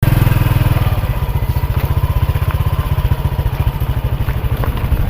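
An engine running with a fast, even low throb.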